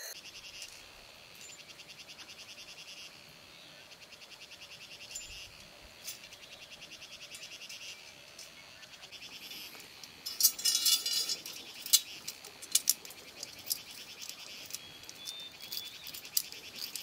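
A chorus of calling insects and frogs: fast, evenly pulsed calls in trains of about two seconds each. About ten seconds in comes a run of sharp, louder clicks, the loudest part.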